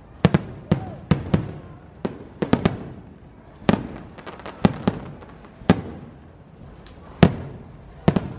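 Aerial firework shells bursting: a string of about fifteen sharp bangs, unevenly spaced and some in quick pairs, each followed by a brief echo.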